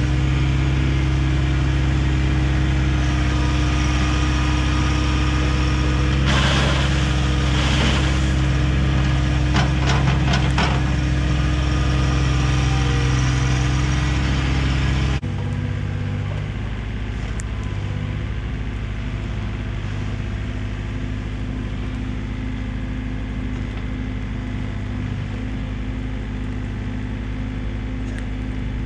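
Diesel engines of a mini excavator and a compact tractor running steadily, with a rush of dirt and stones and some metal clanks around six to eleven seconds in. About halfway the engine sound drops abruptly and runs on at a lower, steady level.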